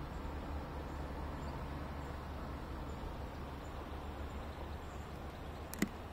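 Steady outdoor background noise dominated by a low rumble, with one short sharp click near the end.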